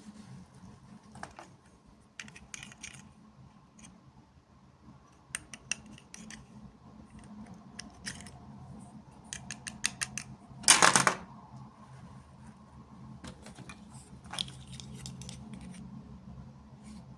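Hands handling small plastic toy packaging: scattered light clicks and crinkles, with a quick run of ticks and then a louder half-second rustle about eleven seconds in, over a faint steady low hum.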